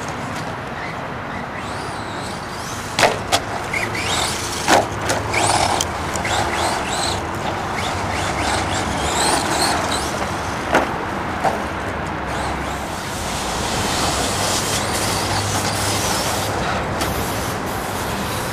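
Brushless electric motor of a 4x4 RC monster truck whining up and down in pitch as it is driven hard, over steady tyre and chassis noise. A few sharp knocks come from about three seconds in, twice close together, again near five seconds and once near eleven.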